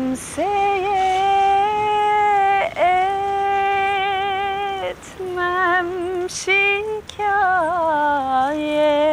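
A woman singing alone, with no accompaniment. She holds long notes with a wavering vibrato, in several phrases separated by short breaks.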